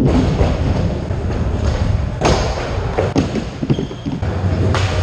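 Skateboard wheels rolling on a concrete floor, with sharp clacks and thuds as the board is popped and slaps down, the loudest about two seconds in.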